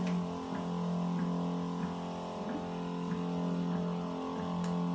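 Desktop OCA laminating machine's motor running with a steady, unchanging hum of several tones, with a faint tick about every two-thirds of a second.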